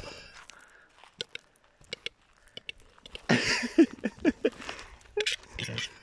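Footsteps crunching on loose gravel, with scattered sharp clicks early on and a louder, rougher stretch of crunching and scuffling about three seconds in.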